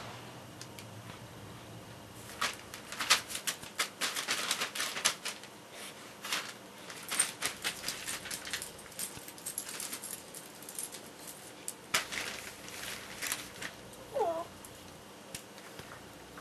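Newspaper crackling and rustling in quick bursts as small dogs scrabble and dig on it with their paws. Near the end a dog gives one short whine.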